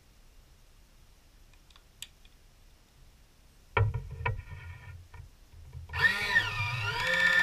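An electric hands-free can opener clunks down onto the top of a tin and clicks a few times as it is seated. About six seconds in, its motor starts at a press of the button with a whine that wavers in pitch for a moment, then settles into a steady whirr.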